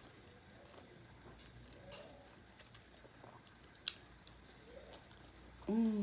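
Faint eating sounds of a person chewing and pulling meat off a chicken bone with the fingers, with a sharp click about four seconds in. Near the end comes a short closed-mouth hum of a woman's voice.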